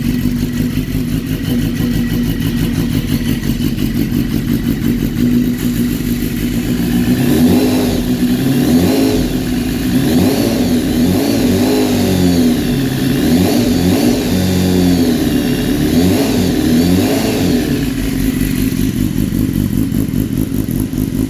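BMW S1000RR inline-four engine running on its first start after a rebuild: a steady idle, then the revs rising and falling repeatedly for about ten seconds in the middle before settling back to idle.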